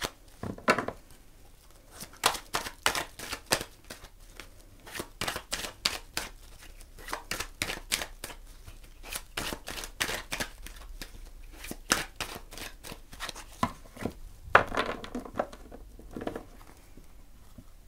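A deck of oracle cards being shuffled by hand: quick, irregular card slaps and rustles, several a second, thinning out near the end.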